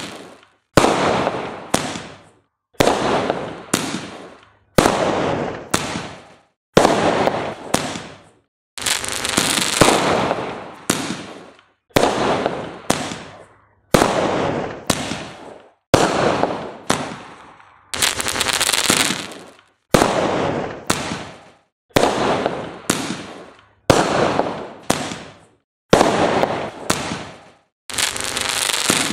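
Multi-shot fireworks cake firing its shells one at a time, about one every two seconds: each a sudden bang that fades away over a second or so with crackling, before the next shot.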